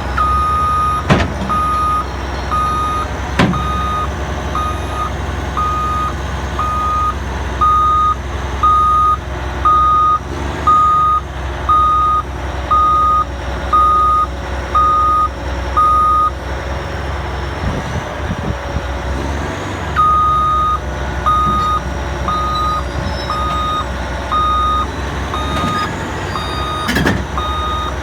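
Bulldozer's reversing alarm beeping about once a second over the steady low rumble of its diesel engine, stopping for a few seconds in the middle and then starting again. A couple of sharp clanks in the first few seconds and a thump near the end.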